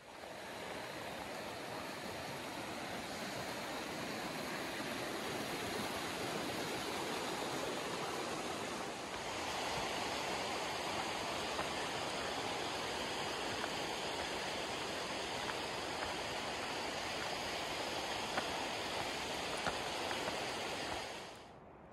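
Steady rush of a fast-flowing stream, fading in at the start, a little louder from about nine seconds in, and fading out near the end.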